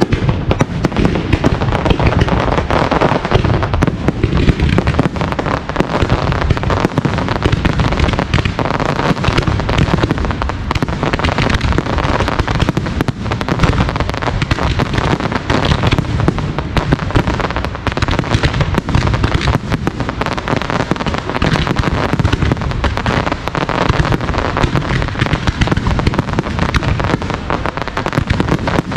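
Aerial fireworks display: shells bursting in quick succession, a dense run of bangs and crackle with no let-up.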